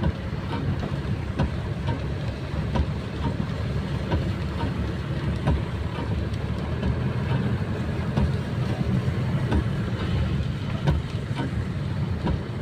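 A vehicle in motion: a steady low engine and road rumble with scattered small knocks.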